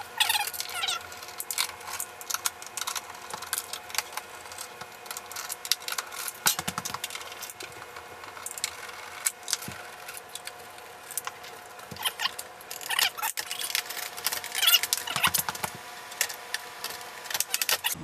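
Screwdriver backing out the screws of a Kenmore Elite dishwasher's door panel: a run of small metallic clicks, rattles and scrapes from the screws, the tool and the sheet-metal door. There are a few short squeaks.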